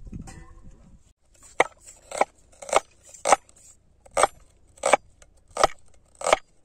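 Steel cleaver chopping red onion on a wooden cutting board: eight steady chops a little over half a second apart, starting about a second and a half in.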